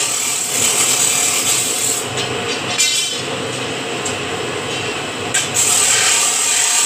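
Electric scroll-bending machine running, its motor and gearbox turning the bending die as a square steel bar is curled into a scroll: a steady grinding mechanical noise. The high hiss drops away for a few seconds in the middle, with a brief rattle of quick clicks about three seconds in.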